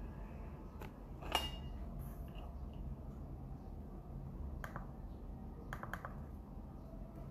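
A few light clicks and taps of hard objects over a low room hum, the loudest a sharp, slightly ringing clack about a second and a half in, with a quick cluster of smaller clicks near the end.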